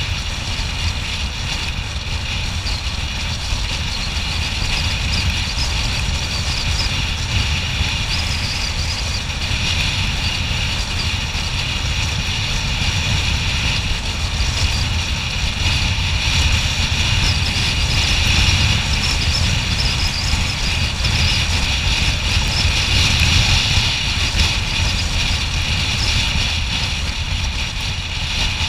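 A motor scooter riding at steady road speed: wind buffeting the microphone over engine and tyre noise, a continuous rumble with a high hiss, getting somewhat louder past the middle.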